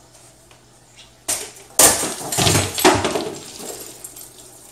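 Metal frame of a folding rollaway bed clattering and crashing as the bed folds up on itself. A burst of bangs and rattles starts about a second in and dies away within about two seconds.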